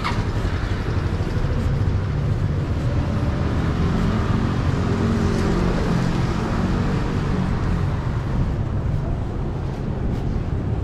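City street traffic: a steady low rumble of motor vehicles, with one engine note swelling and fading as a vehicle passes close by in the middle.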